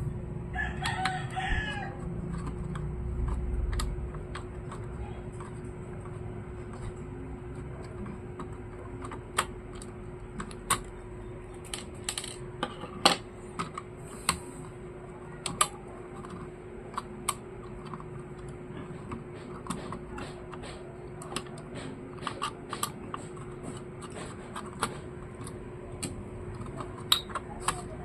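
Irregular small clicks and taps of plastic and metal parts of an Asus X441U laptop being handled and worked on during disassembly. A rooster crows briefly near the start, and a faint steady hum runs underneath.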